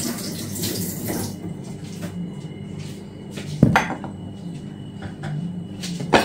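A kitchen tap runs and stops about a second in, then dishes and utensils clatter and clink at the counter, with one sharp knock about three and a half seconds in and a smaller one near the end.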